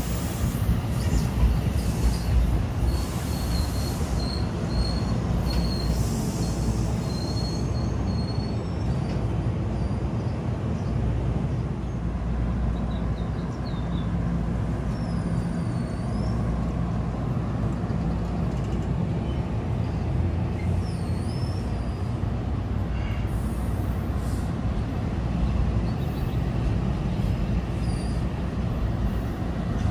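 NJ Transit MultiLevel bilevel passenger coaches rolling past on the track: a steady rumble of wheels on rail. A thin, high squeal sounds between about three and eight seconds in.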